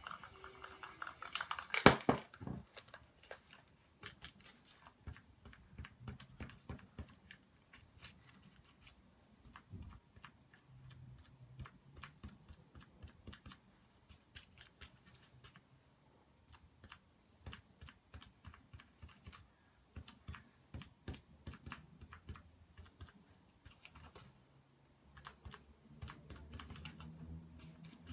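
Aerosol spray paint can spraying for about two seconds, ending in a sharp click. After that come many light, irregular clicks and taps as a sheet of paper is handled and pressed against the painted panel.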